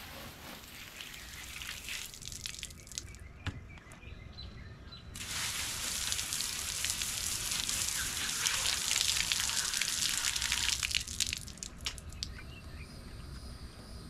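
Garden hose spray nozzle hissing as it rinses a catfish held in the hand, the water splattering onto concrete. The spray is lighter at first, heaviest from about five to eleven seconds in, then eases off.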